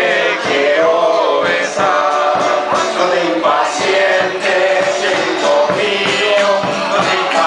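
Folk group performing a Chilote waltz (vals chilote), voices singing together over instrumental accompaniment with a steady beat.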